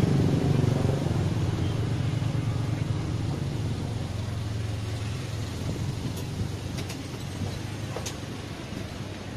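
A motor vehicle's engine running close by at the start, then fading steadily as it moves away, with a few faint clicks later on.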